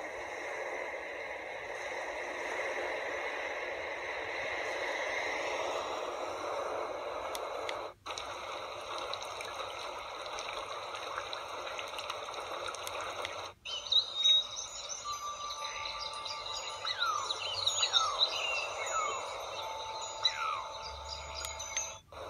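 A steady rushing hiss, broken by two short dropouts. A little past halfway, birds start chirping in quick falling notes over a few long held tones.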